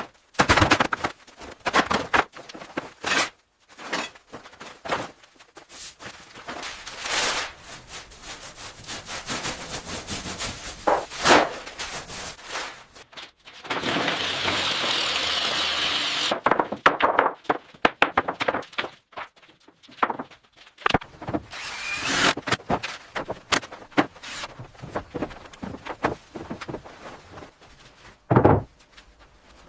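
A string of tool and wood-working sounds: scraping and rubbing strokes and knocks, with one steady stretch of sawing or power-tool noise lasting about three seconds near the middle.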